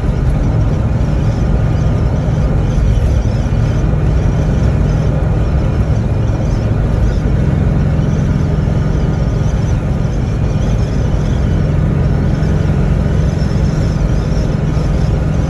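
Steady low rumble of a car in motion, road and engine noise heard from inside the cabin.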